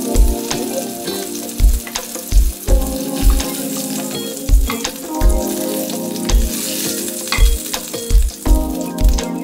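Chicken thighs sizzling in hot oil in a frying pan, under background music with a steady beat.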